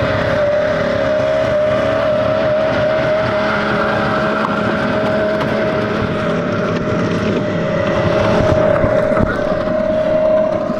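Snowmobile engine running at a steady pitch.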